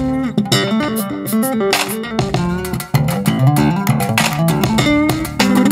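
Instrumental music with plucked guitar melody, bass guitar and sharp percussive hits, played loudly through a pair of Huper LA210P line array speakers (two 10-inch mid-low drivers each) for a sound check.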